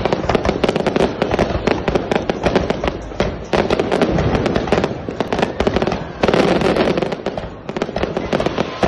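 Aerial fireworks going off in rapid succession: a dense string of sharp bangs and crackles from bursting shells, many each second, swelling a little louder about six seconds in.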